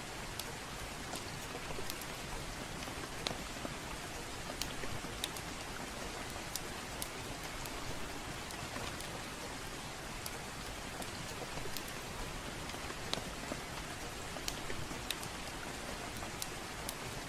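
Steady rainfall hiss with a wood fire crackling: scattered sharp pops and snaps at uneven intervals over the even wash of rain.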